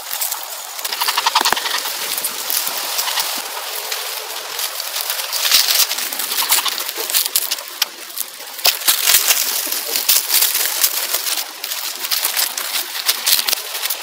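Dry leaves and grass rustling and crackling as small dogs root and sniff through them, with many short snaps and clicks.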